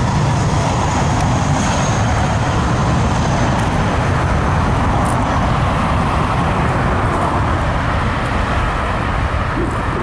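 Loud, steady roar of an Airbus A319's jet engines mixed with cars on the adjacent road, easing slightly near the end.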